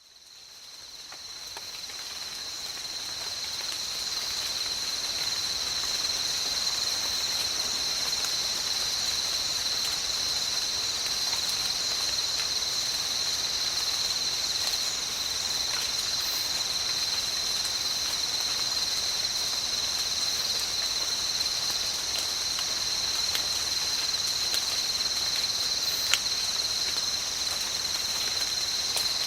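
Steady rain with a continuous high-pitched chorus of insects, fading in over the first few seconds.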